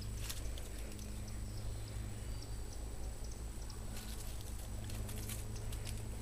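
Two Airedale puppies scuffling in play, with scattered clicks and scrapes of paws and claws on stone and concrete blocks, thickest a little after the middle, over a steady low rumble.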